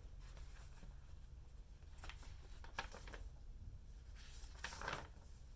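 Paper handling from a picture book being turned to the next page: a few soft clicks, then a brief rustle of the page about four and a half seconds in, over a low steady hum.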